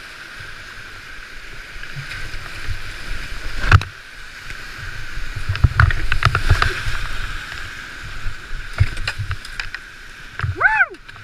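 Whitewater rushing and splashing around a creek kayak running a steep rapid, with several sharp thumps, the loudest about four seconds in and a cluster a couple of seconds later. Near the end comes a short high-pitched call that rises and falls.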